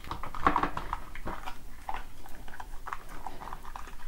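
Cured silicone rubber mould being flexed and worked by hand to free a tightly wedged wooden infill: a run of irregular short creaks, rubs and clicks.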